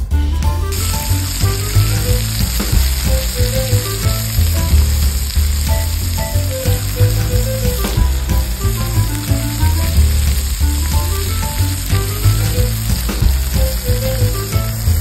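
Meat sizzling and frying in a pan over open flames, an even hiss that starts about a second in. Background music with a steady bass line plays throughout.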